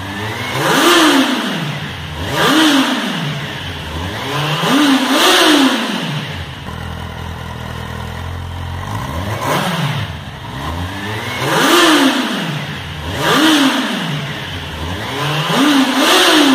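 A Kawasaki Z800's 806cc inline four-cylinder engine is revved while the bike stands still, in short throttle blips. Each blip climbs in pitch and falls back to idle, some coming as quick doubles. The engine settles to a steady idle for a few seconds in the middle.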